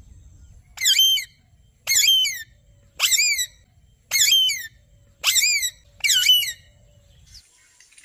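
Alexandrine parakeet calling: six loud calls, about one a second, each sliding down in pitch.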